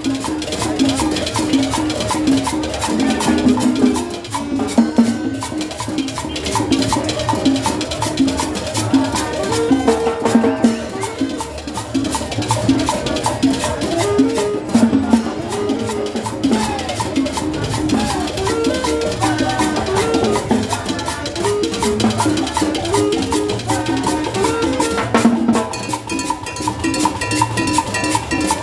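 A live street band playing Latin dance music, with saxophone, double bass, drums and cymbal over a steady dance beat.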